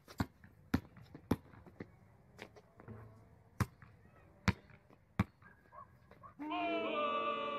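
Basketball bouncing on an asphalt driveway, single irregular bounces. About six seconds in, music with held tones starts.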